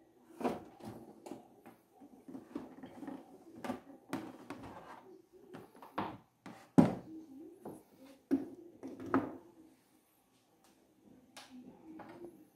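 Irregular knocks, clicks and handling rustle as a Philco LED TV is lifted and stood upright on a workbench, its plastic casing bumping and the power cable dragging; the sharpest knock comes about seven seconds in.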